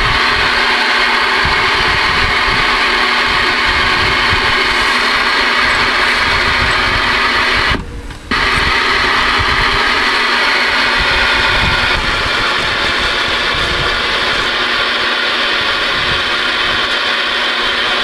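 Galaxy DX-2547 CB base station receiving band static through its speaker: a loud, steady hiss with a low hum under it, breaking off for about half a second around eight seconds in as the channel changes.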